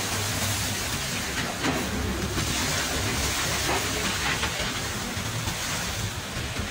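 Train running along the track: a steady rumble and rushing noise of wheels on the rails, with a few light, irregular clacks.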